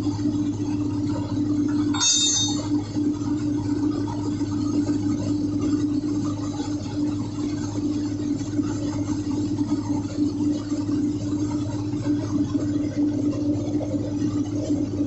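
Steady drone of ship's engine-room machinery running, with a brief ringing clink about two seconds in, as a spanner works a purifier foundation-bolt nut.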